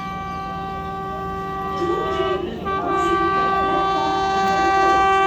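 Electric multiple unit (EMU) train's horn sounding one long, steady note, with a brief break about two and a half seconds in before it resumes louder.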